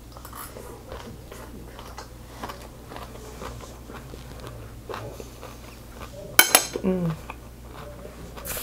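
Soft chewing of a mouthful of food. About six seconds in, metal chopsticks are set down on a ceramic plate with a sharp, ringing clink, followed by a short falling hum from the eater.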